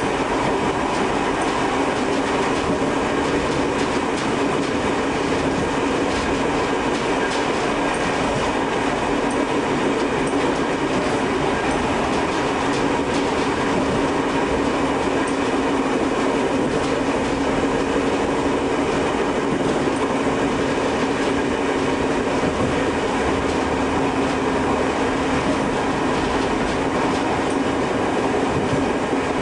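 Tobu 5700 series electric train running steadily along the track, heard from the cab: an even rumble of wheels on rail with a constant hum underneath.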